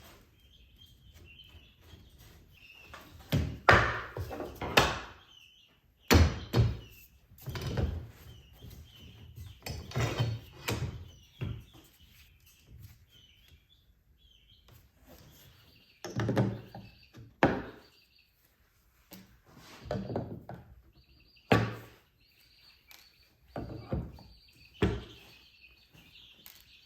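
Irregular knocks, thumps and scraping from hands working on a wooden screen door off its hinges, with birds chirping throughout.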